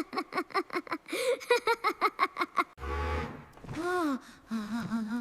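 A high, playful voice giggling in quick repeated bursts. About three seconds in, it gives way to longer drawn-out vocal sounds, one rising then falling in pitch, then a short steady hum.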